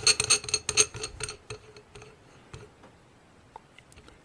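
Light metallic clicking as a steel flash suppressor is screwed by hand onto an AR-15 barrel's threads over a stainless steel shim washer. There is a quick run of clicks for about the first second and a half, then only a few scattered ticks.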